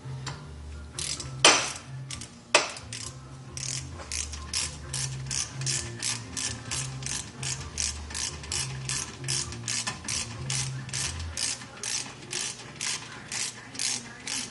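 Two sharp metal knocks, then a hand ratchet wrench clicking steadily, about three to four clicks a second, as it turns a bolt on a 1999 BMW 328i's front brake caliper.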